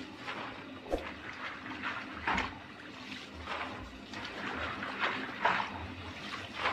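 Plastic scoop scraping and digging into a basin of soaked soybeans, again and again, with water trickling off each scoopful of wet beans. A sharp click about a second in.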